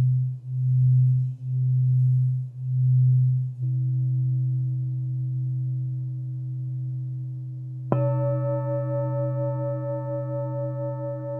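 Alchemy crystal singing bowls: a low tone sung around the rim, pulsing about once a second, then steadier, and about eight seconds in a bowl is struck, ringing with several higher overtones and a slow wobble as it sustains.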